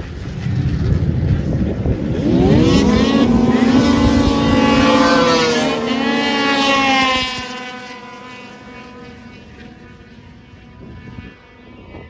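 Two racing snowmobiles accelerate hard past on the ice at full throttle. Their engines' whine climbs steeply in pitch about two seconds in, holds loud and high for several seconds, then fades away as they go by.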